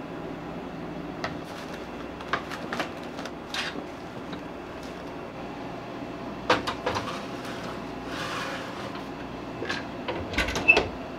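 Kitchen work sounds: scattered clicks and knocks of dishes and containers being handled, with clusters of knocks about six and a half seconds in and again near the end, over a steady low hum. A brief hiss comes a little past halfway.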